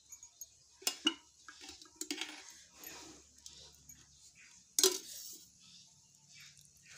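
Metal cookware clinking and knocking a few times, with the loudest knock about five seconds in.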